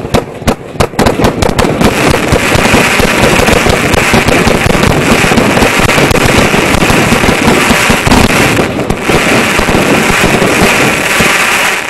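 Aerial fireworks launched at close range. Separate sharp bangs in the first couple of seconds run together into a loud, dense, continuous crackling rush, which stops near the end.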